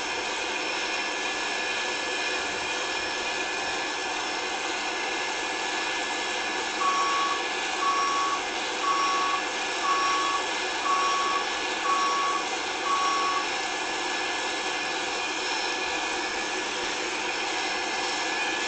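A vehicle's reversing alarm beeps seven times, about once a second, over steady engine noise, as machinery backs up while coaling a locomotive.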